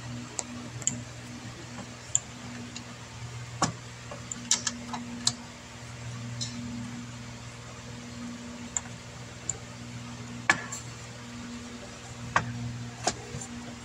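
Scattered light clicks and taps from a rubber gasket being pressed into the groove of a plastic engine valve cover and the cover being handled, bunched a few seconds in and again near the end, over a steady low hum.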